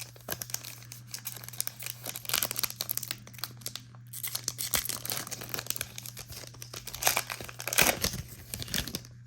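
Plastic trading-card pack wrapper crinkling and being torn open, in irregular crackles with a short pause partway through and the loudest crackling near the end.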